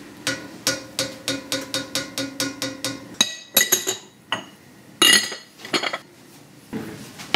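A plastic spoon tapped rapidly against a cast iron skillet, about four or five taps a second, knocking off solid bacon grease while the pan rings. The tapping stops about three seconds in, followed by a few scattered clinks and knocks of kitchen items being handled.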